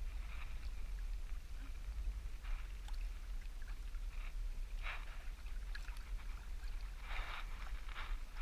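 Canoe paddling: the paddle dipping and splashing in choppy water every second or two, with water lapping against the hull. A steady low rumble runs underneath.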